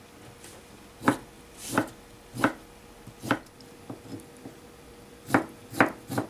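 Ceramic kitchen knife slicing boiled bamboo shoot thin on a plastic cutting board: a series of separate sharp cutting strokes that come faster near the end.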